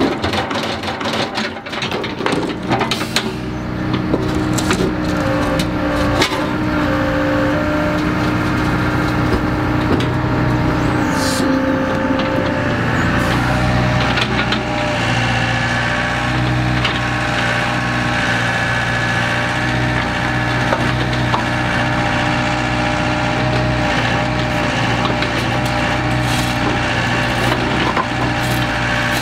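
Daewoo excavator running steadily as it works. Wet muck and rocks drop from its bucket into a steel dump truck box in the first few seconds with a clatter of knocks.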